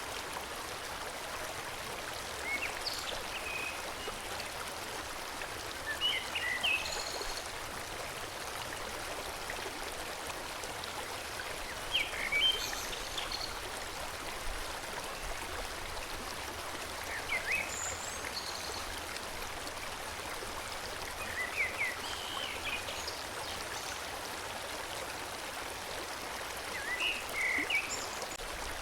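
Forest stream flowing steadily, with small groups of short, high bird chirps every few seconds.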